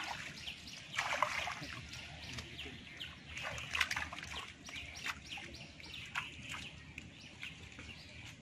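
Hands splashing and sloshing in shallow muddy water, loudest about a second in and again around three and a half seconds, with birds chirping throughout.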